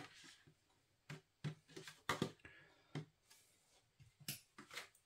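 Faint, scattered taps and scrapes of a metal utensil against a plastic ready-meal tray, scraping out the last of the onion gravy and onions.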